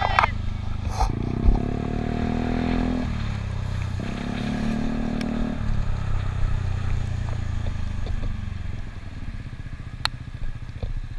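Yamaha Cygnus X scooter's single-cylinder engine accelerating twice, its pitch rising for about two seconds each time and cutting off as the throttle closes, then running low and steady as the scooter slows for a red light.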